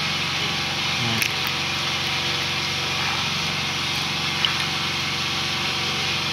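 Steady mechanical running noise, an even hum and hiss like a small motor, with two short clicks: one about a second in and one about four seconds in.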